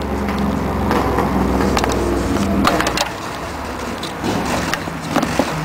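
Hands working a bulb socket and its wiring into the back of a plastic headlight housing, making several sharp plastic clicks and rubbing sounds. A low rumble runs underneath and fades about halfway through.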